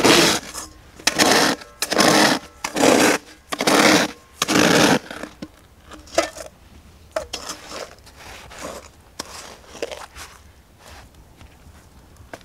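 A metal bowl scraped and pushed through snow, scooping it up in about six loud, crunching strokes over the first five seconds, then smaller, quieter scrapes.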